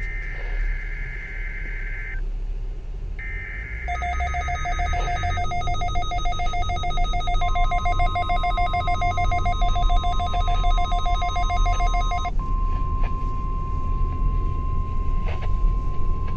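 NOAA Weather Radio required weekly test received on a weather radio in a moving car. Two warbling SAME digital header bursts end about 5 seconds in. A rapidly pulsing electronic alert beep then sounds from about 4 to 12 seconds, and the steady 1050 Hz warning alarm tone starts about 7 seconds in and keeps going, all over low road rumble.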